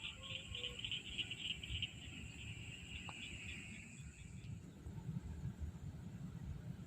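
Insect chirping outdoors in a fast pulsing trill that stops about four and a half seconds in, over a low rumble of wind or handling noise.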